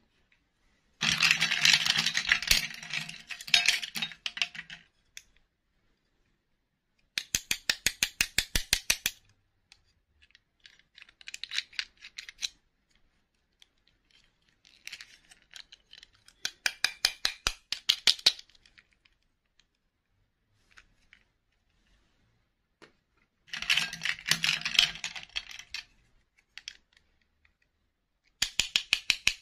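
Small plastic princess dolls and their snap-on dresses handled by fingers: several bursts of rapid clicking, about ten clicks a second, each lasting a second or two, with short pauses between.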